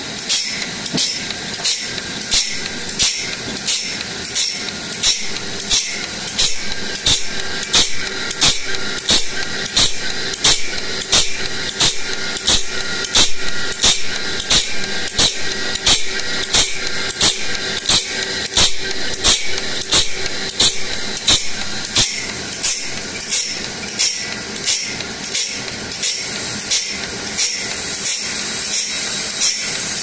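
Umiya automatic saw-sharpening machine grinding a sawmill band saw blade tooth by tooth. Its abrasive wheel runs with a steady high hiss, and a sharp grinding stroke comes about twice a second, in an even rhythm, as each tooth is ground.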